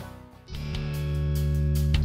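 Background music led by guitar. It fades to a short gap, then comes back about half a second in with held chords over a steady bass.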